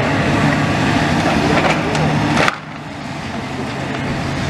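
Demolition machinery at work: a diesel excavator's engine running steadily while its grab crunches through broken rubble. The noise drops off abruptly about halfway through, then slowly builds again.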